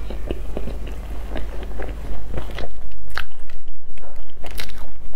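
Close crunching and crackling of a crisp crumb-topped cream puff's crust as it is pulled apart and chewed, with many sharp crackles at first and a denser, louder stretch about three seconds in.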